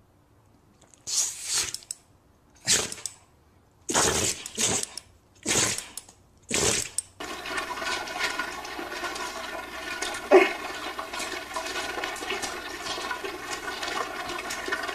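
A dog making about six short, breathy bursts a second or so apart. It then gives way to a steady hiss with a faint hum.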